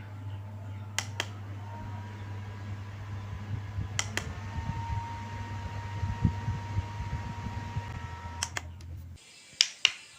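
Small desktop mini fan running with a steady hum and a faint motor whine, its button clicking a few times. The fan stops about nine seconds in, and two more clicks follow.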